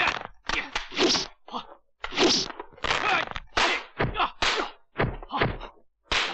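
Kung fu film fight sound effects: a rapid series of dubbed punch and kick impacts, two or three a second.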